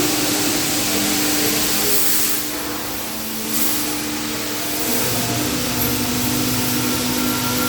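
CNC machine running: a steady hiss with a machine hum whose tones shift about five seconds in.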